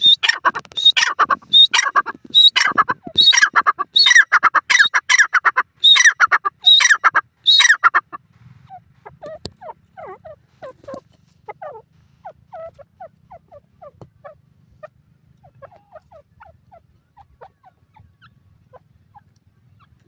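Grey francolin (teetar) calling: a loud, rapid run of harsh repeated calls that stops about eight seconds in, followed by soft, scattered low clucks.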